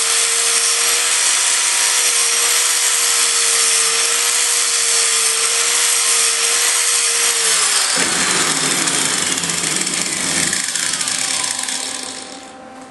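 Handheld angle grinder grinding down a spot on a welded steel rod, throwing sparks, with a steady motor whine. About eight seconds in, the grinder's note changes and it winds down with a falling whine, dropping off near the end.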